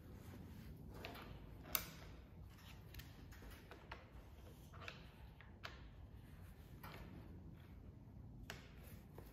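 Faint clicks and taps of gloved hands handling a PCP air rifle on a bench, with one sharper click just under two seconds in, over a low room hum.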